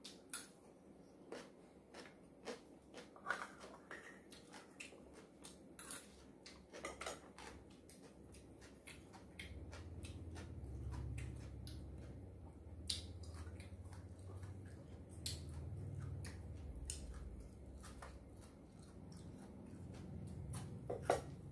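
A person eating: chewing food with short mouth clicks, and now and then a light tap of chopsticks or spoon on a bowl. A soft low rumble runs through the middle stretch.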